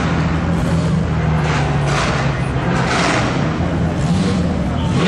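McLaren Senna's twin-turbo V8 running at low revs as the car pulls away slowly, a steady low engine note that climbs briefly near the end.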